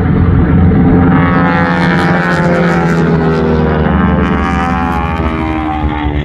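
Radial engine and propeller of a North American T-6 Texan running loud at high power in an aerobatic pass. The pitch slowly falls as the aircraft goes by.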